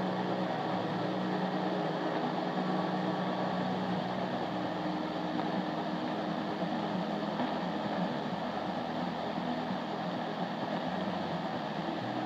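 Tecsun PL-600 portable receiver tuned to 1593 kHz medium wave, giving out a steady hiss of static with faint tones under it: a weak, distant AM signal buried in noise.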